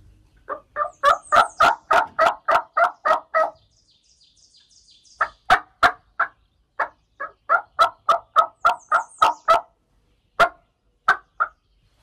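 Loud runs of turkey yelps, about four to five scratchy notes a second. A long run is followed by a gap of about a second and a half, then a second long run, then a few spaced single notes near the end.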